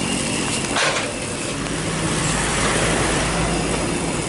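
Vehicle engine running steadily, with a short clack about a second in.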